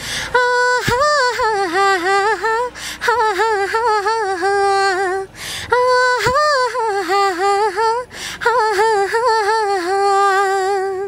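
A young woman singing unaccompanied, drawing out long held notes with pitch turns and wavers, in about four phrases with short breaths between.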